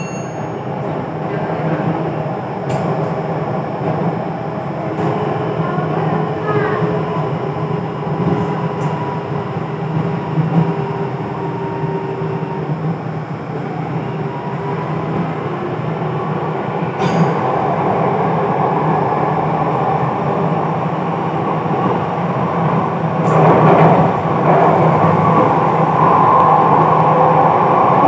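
Jakarta MRT train running between stations, heard from inside the carriage: a steady rumble of wheels and running gear with a humming motor tone. It grows louder in the second half.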